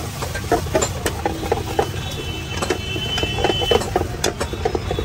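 Steel ladle scraping and clinking against an iron wok as chilli chicken gravy is stirred, a quick irregular run of knocks and scrapes, over a steady low rumble.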